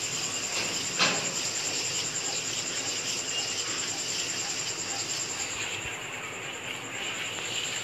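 Metal spoon stirring thickening starch paste in a steel pan on a gas stove, with one sharp clink of spoon against pan about a second in, over a steady hiss.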